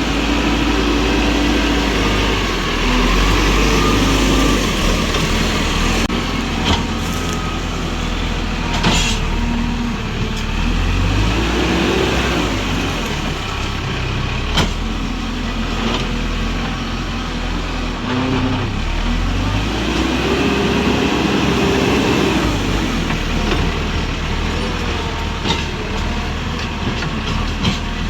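Tractor engine running steadily and revving up and down twice under load, with a few sharp metallic clanks.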